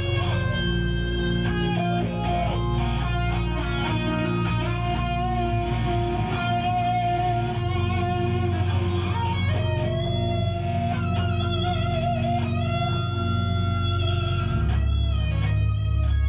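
Live hard rock band playing: distorted electric guitar holding long notes that bend in pitch, over heavy bass.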